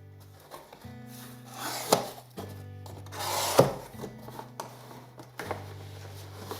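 A cardboard shipping box being opened by hand: two rasping tears, each ending in a sharp snap, and a few lighter clicks, over background music.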